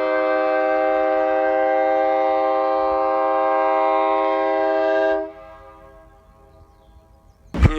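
USA Train Horns RC3 three-chime air horn blowing a steady chord of several tones, cutting off about five seconds in with a short fade.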